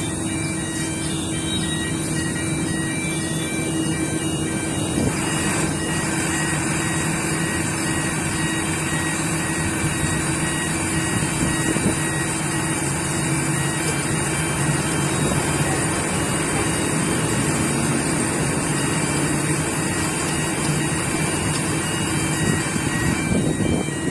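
Steady, unbroken running of a crawler crane's diesel engine, a constant low hum under a broad machine noise.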